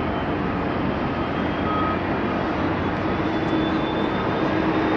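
Boeing 767-300 airliner on final approach to land, its twin jet engines heard as a steady rushing noise. A low hum comes in about three seconds in and grows louder.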